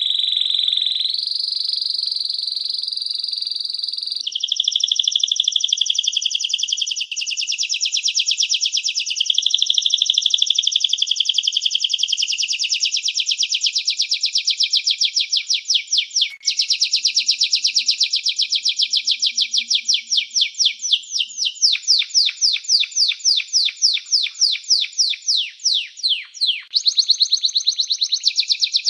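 A songbird singing one long, unbroken song: a held whistle, then very fast trills, slowing in the second half into separate downward-sweeping notes about five a second.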